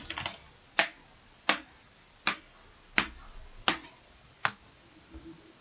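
Six sharp finger snaps at an even pace, about one every three-quarters of a second, made as the sound effect for a flea hopping.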